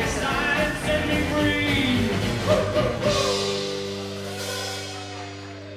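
Live rockabilly band (acoustic guitar, electric guitar, drum kit) finishing a song. A last sung note sounds over the band, then about three seconds in a final chord is struck and left to ring, fading out.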